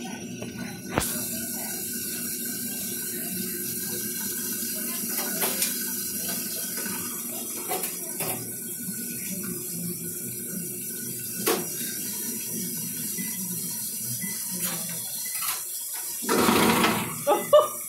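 Kitchen faucet running into a stainless steel sink, with scattered knocks and clinks of a hand working in the basin. A louder rush of noise comes near the end.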